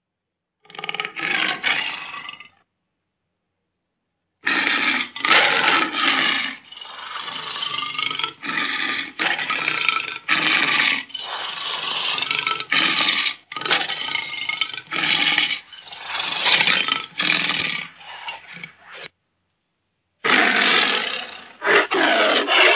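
Recorded tiger roars and growls: one short call, then after a gap a long run of repeated roars and growls, and a last run after a short pause near the end.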